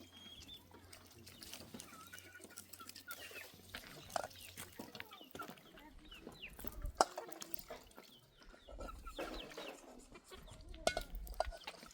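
Chickens clucking in short calls, with a few sharp clicks and knocks in between.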